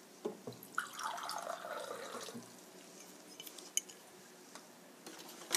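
Water running into a cup for about a second and a half, starting about a second in, followed by a few light clicks.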